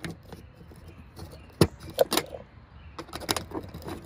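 Wire snips cutting and working wires off a small circuit board: a string of sharp metal clicks and snips, the loudest about a second and a half in, with a quick cluster near the end.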